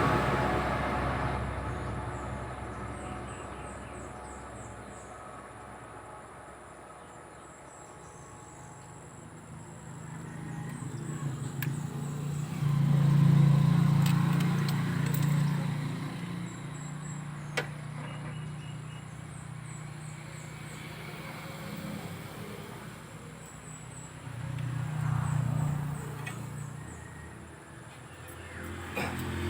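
Low engine hum of vehicles going by, fading at the start and swelling and fading twice more, with faint high chirping and a single sharp click.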